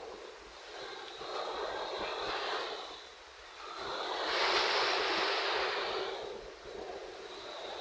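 Rushing wind and sea-wave noise, swelling and easing in surges every couple of seconds, strongest about halfway through.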